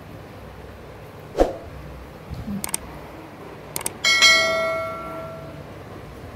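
Subscribe-button animation sound effect: two mouse clicks, then a bell chime that rings out and fades over about a second and a half. A soft thump comes about a second in.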